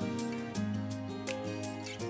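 Instrumental background music with held notes that change every half second or so.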